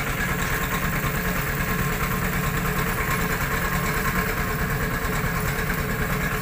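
Hydraulic excavator's diesel engine running steadily with an even low throb while the machine hoists a motorcycle on its boom.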